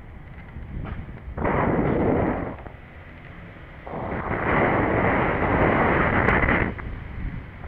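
Wind buffeting the microphone of a camera on a moving bicycle: two loud gusts of rushing noise, a short one about a second and a half in and a longer one from about four seconds in until near the end.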